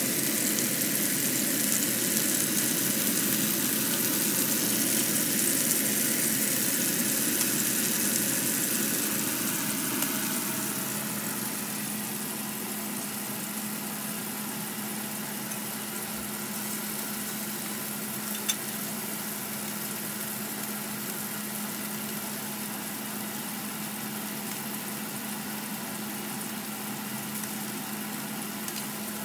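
Steak sizzling in hot oil in a frying pan, a steady hiss that drops a little quieter about ten seconds in. From then on a steady low hum sits under the sizzle.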